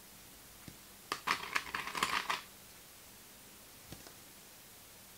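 Plastic sewing clips clicking and fabric rustling as bias binding is clipped onto a fabric piece: a short cluster of clicks and rustles about a second in, lasting about a second and a half, then a single light tick near the four-second mark.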